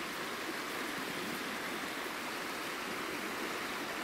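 Steady rush of river water running.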